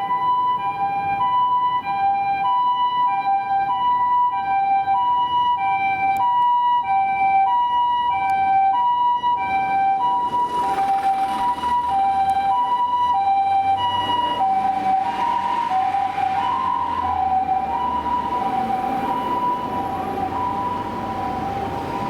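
Japanese ambulance's two-tone electronic siren on an emergency run, a high and a low tone alternating steadily, each lasting a little over half a second. About halfway through, engine and road noise rise under it.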